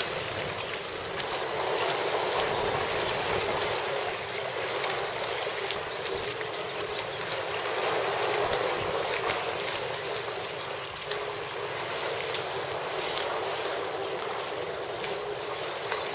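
Swimmers' strokes splashing and churning the pool water in a continuous wash, with many short sharp splashes scattered throughout, as they swim a single-arm freestyle drill.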